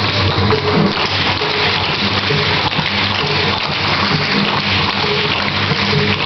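Many tap shoes clattering on a hardwood floor in a dense, continuous patter, over background music with repeating low notes.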